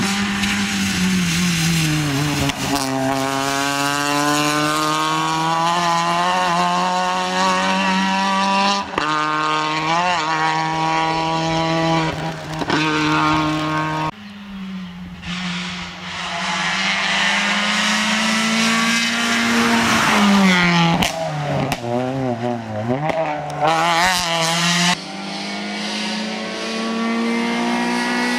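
Peugeot 206 rally car's engine driven hard on a rally stage, its pitch climbing and dropping as the driver works through the gears and lifts off. The sound breaks off abruptly twice, at about 14 and 25 seconds, as one pass gives way to the next.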